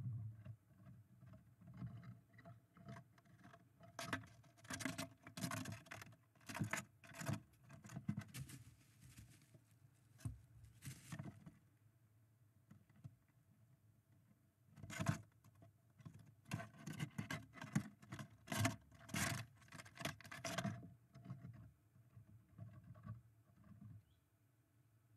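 Red squirrel scrabbling and scratching its claws on the wooden nest box at the entrance hole, heard from inside the box: rapid bursts of scratchy clicks and knocks in two bouts, one a few seconds in and one past the middle.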